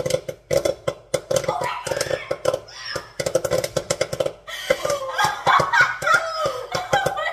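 Popcorn kernels popping rapidly inside a lidded pot on a stovetop, many sharp pops a second, mixed with loud laughter that grows in the second half.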